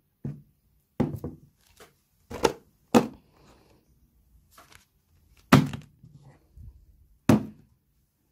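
A handful of sharp thunks on a hard surface, spaced irregularly a second or more apart.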